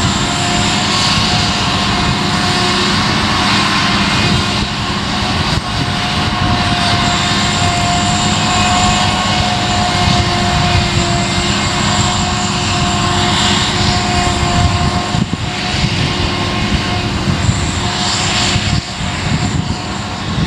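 Claas Jaguar forage harvester chopping rye, its engine and chopper running with a loud, steady drone and a steady whine on top, with the tractor hauling the silage trailer alongside.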